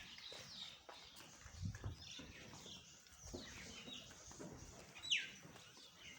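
Birds chirping, many short calls overlapping, with one loud downward-sliding call about five seconds in.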